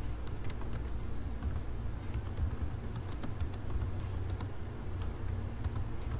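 Typing on a computer keyboard: irregular key clicks over a low steady hum.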